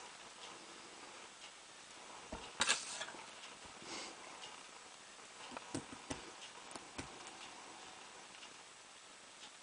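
Lock picks working in the keyway of a solid-brass padlock during single-pin picking: scattered small clicks and taps of metal on metal, with a louder cluster of clicks about three seconds in and a few more around six to seven seconds.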